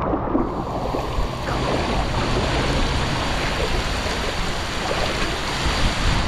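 Steady rushing of water, a dense hiss that sets in about half a second in, over a low rumble of wind buffeting the microphone.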